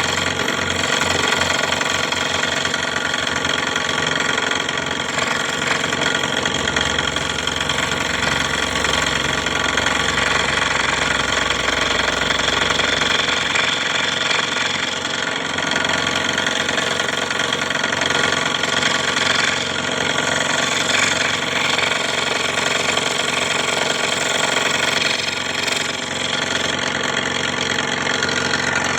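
Electric scroll saw running steadily, its blade reciprocating with a mechanical vibrating drone.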